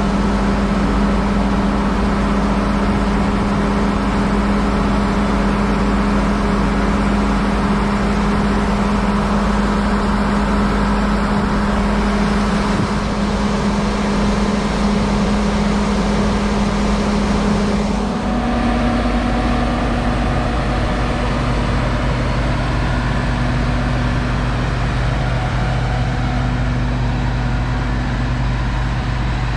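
Grain truck heard from inside the cab while driving on the road: a steady engine drone with tyre and road noise. A little past halfway the engine note steps up slightly in pitch and stays there.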